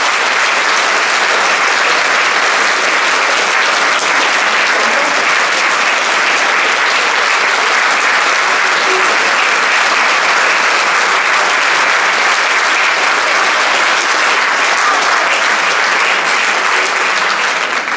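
Audience applauding steadily, with no music or speech over it; the clapping dies away at the very end.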